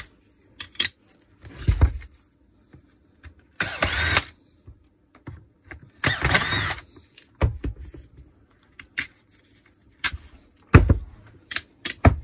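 Power screwdriver backing out housing screws in three short runs of about half a second each, each with a rising whine. Several sharp clicks and knocks follow in the second half as the screws and tool are handled.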